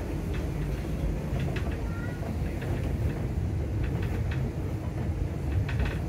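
Lake cruise boat under way, heard from aboard: a steady low rumble of its engine and hull.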